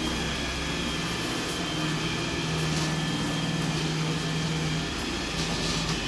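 iRobot Roomba 961 robot vacuum running: a steady motor hum with a thin, steady high whine above it, while its anti-fall cliff sensors are put to the test.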